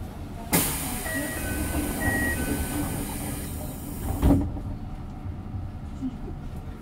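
Pneumatic sliding doors of a Toei 5300-series subway car working at a station stop. A long air hiss starts suddenly, a two-note chime sounds twice, and the doors shut with a thump about four seconds in. A low rumble follows.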